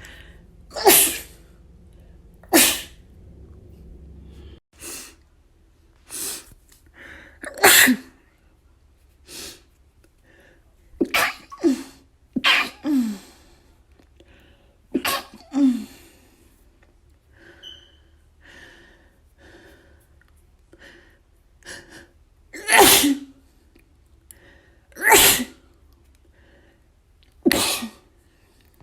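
A person sneezing again and again in a long fit: loud, sudden sneezes about a second in, near three seconds, near eight seconds, in a cluster between eleven and sixteen seconds and three more near the end, with smaller sneezes and catches of breath between them.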